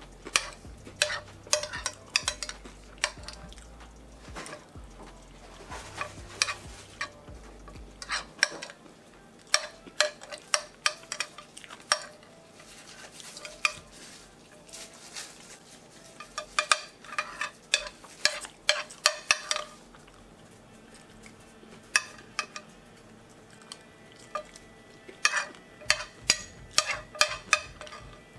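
Metal fork scraping and clicking against a plate in short bursts of quick strokes every few seconds, scooping up leftover fry crumbs.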